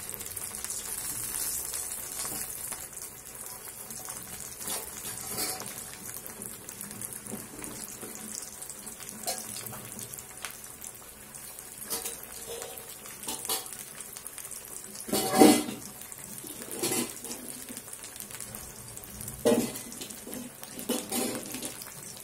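Potato barule sizzling in hot oil in an iron kadhai, a steady bubbling hiss as they are deep-fried a second time to crisp them. A few short clatters sound over it, the loudest a little past two-thirds of the way through.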